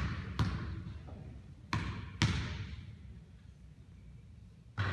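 A basketball bouncing on a hardwood gym floor, each bounce echoing in the hall: four bounces in the first two and a half seconds, then a lull and one more near the end.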